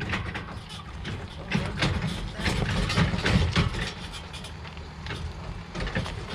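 A vehicle engine idling with a low rumble, with a run of irregular knocks and clatters over it, loudest a few seconds in.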